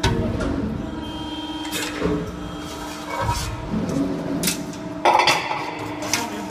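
Hydraulic CNC press brake working: the machine's steady hum shifts with a low rumble as the ram cycles, and sheet metal clanks and rattles several times as a bent panel is pulled out and a new sheet is fed in, loudest about five seconds in.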